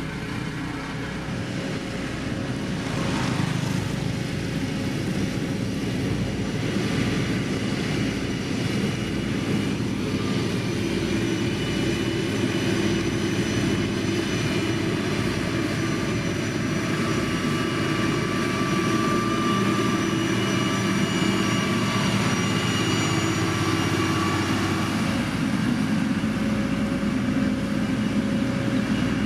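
Heavy road-building machine's diesel engine running steadily, with steady whining tones over the engine note; it grows a little louder a few seconds in.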